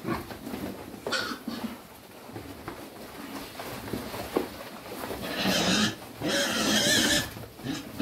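A group of penned pigs grunting, with two loud harsh squeals about a second long each, a little past halfway.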